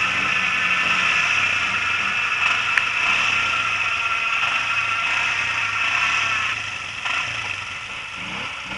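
Quad (ATV) engine idling steadily. It eases off and gets quieter about two-thirds of the way through. A single sharp click comes about three seconds in.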